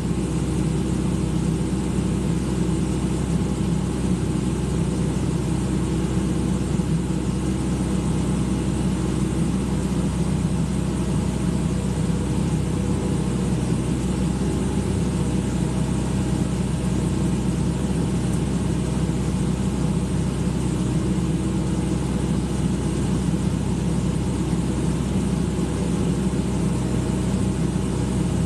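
Excavator's diesel engine running steadily at a constant speed, a low even drone with no revving or breaks.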